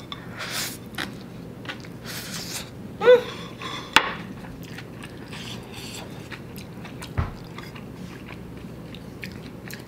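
Close-up mouth sounds of a person slurping and chewing instant black bean noodles, with a short hum about three seconds in and a sharp click just after.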